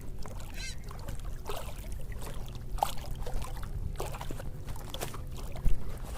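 Water sloshing and trickling, with scattered small knocks and clicks from handling, over a steady low rumble; one louder knock comes near the end.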